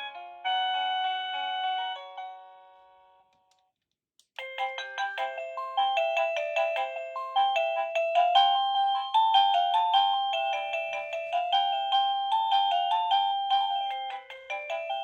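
Avantek wireless doorbell chime playing its electronic tunes. One melody dies away over the first few seconds, then after a short silence a new, quicker tune starts about four seconds in and keeps going.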